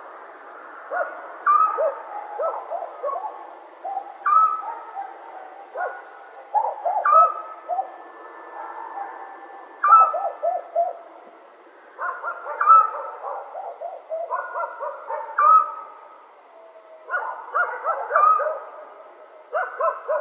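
Night-time animal calls, repeated in phrases every two to three seconds that often overlap. Each phrase has a sharp higher note followed by a run of short lower notes.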